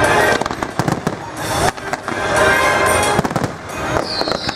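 Fireworks display: a dense run of bangs and crackling from bursting shells and rockets, with music playing underneath. Near the end a long whistle starts, falling slowly in pitch.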